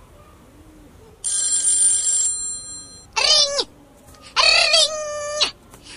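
Mobile phone ringtone playing: a short burst of steady high tones about a second in, then a melody of wavering notes that goes on ringing.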